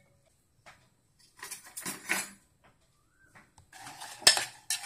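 A spoon stirring jaggery and water in a saucepan to melt it, clinking and scraping against the pan, with one sharp clink. It is quiet at first, then a few soft clatters, and the stirring starts near the end.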